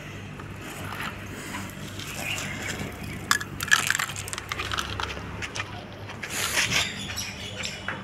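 Plastic toy loader and pebbles being handled on dirt ground: a few sharp clicks and knocks about halfway through, then a short scrape and rustle, over a steady low hum.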